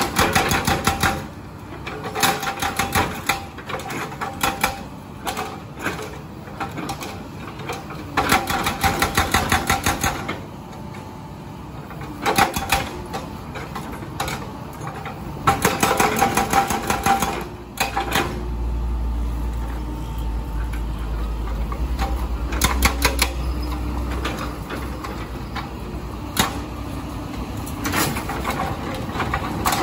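Hydraulic breaker on a Komatsu PC200 excavator hammering into a concrete road slab in repeated bursts of rapid blows, pausing for a few seconds between bursts, with the excavator's engine running underneath. A deep low rumble comes in about two-thirds of the way through and lasts several seconds.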